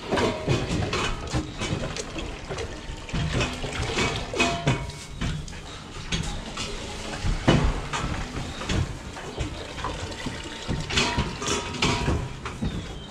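Milk running from a hose nozzle into stainless-steel calf feeding bowls, with irregular clanks of the metal bowls and pen fittings.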